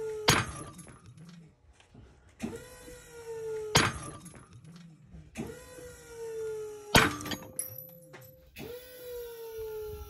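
Titecougo 12 kN aluminium carabiners pulled to failure on a break-test rig. Each time the rig's whine builds and slowly falls in pitch, then the carabiner breaks with a sharp bang. This happens three times, just after the start, near four seconds and near seven seconds, and a fourth whine begins near the end.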